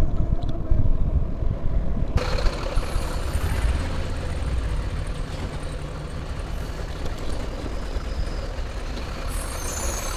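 Wind rumble on the microphone and road noise from riding an Ola S1 Pro electric scooter in traffic, with buses and trucks running close by. A steady hiss sets in about two seconds in.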